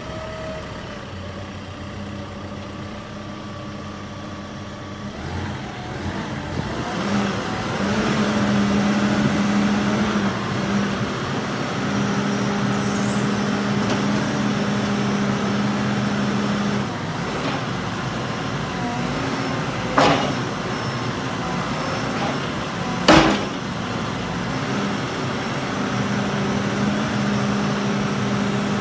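Caterpillar 432F2 backhoe loader's four-cylinder Cat C4.4 diesel running; it revs up about six seconds in as the front loader arms are raised and holds a steady, higher drone. Two sharp knocks, the loudest sounds, come about twenty and twenty-three seconds in.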